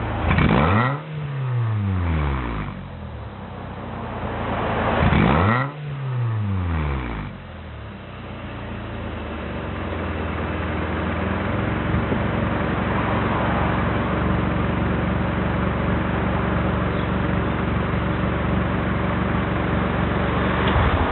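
Exhaust of a Toyota Altezza SXE10's 3S-GE four-cylinder engine through a modified Kakimoto muffler with its inner silencer fitted and the catalytic converter in place. Two quick blips of the throttle, each falling back toward idle, about five seconds apart. The engine then climbs to a steady raised rpm and is held there for about ten seconds.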